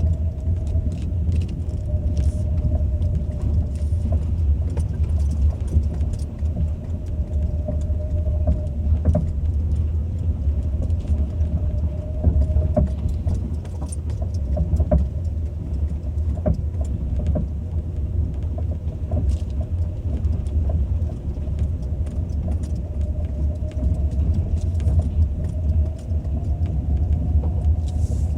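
Ford Focus II being driven, with steady road rumble and scattered short knocks and rattles from a steering rack that is knocking.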